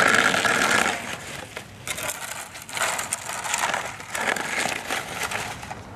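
Snow shovels scraping and crunching through crusty old snow and ice on pavement, in a series of uneven scrapes.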